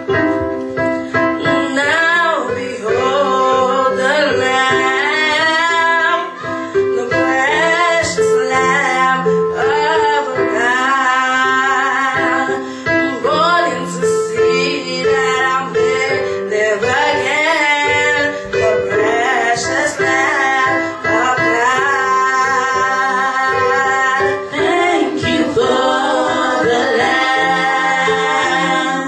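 Gospel worship song: voices singing over held keyboard chords.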